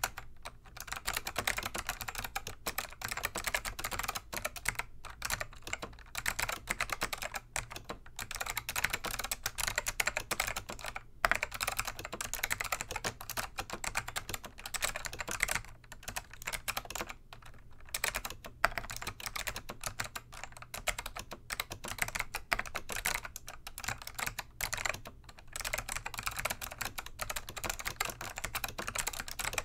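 Typing on a Dell AT101 keyboard with click-modded Alps SKCM Black switches: a dense, fast run of clicky keystrokes broken by short pauses.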